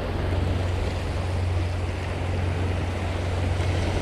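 Wind buffeting the microphone over steady sea surf washing against the rocks, a continuous rushing noise with a deep steady rumble.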